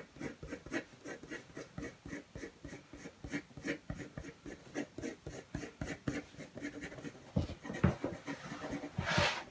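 White coloured pencil scratching on black card in quick, short hatching strokes, about three a second, laying in fur strands. A short, louder hiss near the end.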